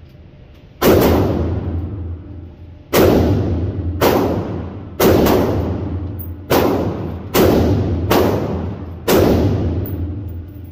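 AR-15-style rifle fired shot by shot, about eight shots a second or two apart, each with a long echoing tail off the walls of an indoor range.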